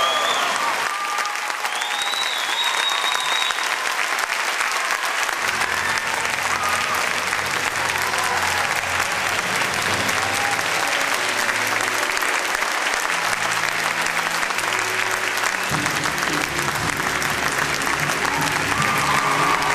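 Theatre audience applauding loudly. From about five seconds in, the pit orchestra plays low sustained notes beneath the applause, fuller near the end as the curtain-call music begins.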